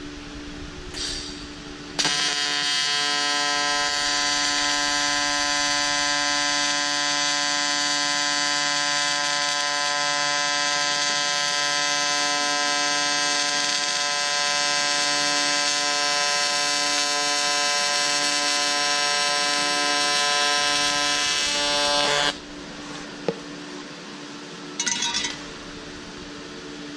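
A TIG welding arc with a pure-tungsten electrode buzzing steadily for about twenty seconds. It starts abruptly about two seconds in and cuts off at about 22 seconds, with brief hisses just before it starts and a few seconds after it stops. By the welder's own account, the foot pedal was not pressed hard enough.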